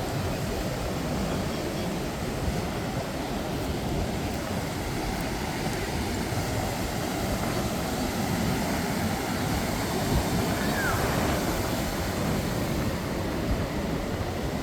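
Steady, even wash of ocean surf breaking on a beach.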